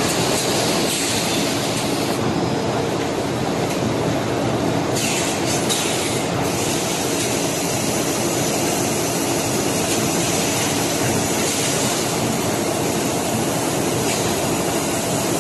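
Semi-automatic extrusion blow molding machine running: a steady mechanical drone and hiss with a faint hum, and a short burst of hissing about five seconds in.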